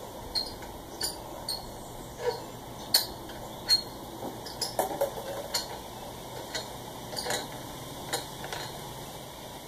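Lug nuts being unscrewed by hand from the wheel studs, giving a scatter of small metallic clicks and clinks at irregular intervals.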